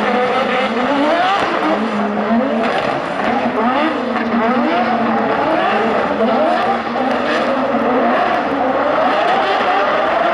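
Two drift cars, a Toyota GR Supra and a Nissan Silvia, sliding in tandem, their engines revving up and down over and over as the throttle is worked, over a steady din of tyre and exhaust noise.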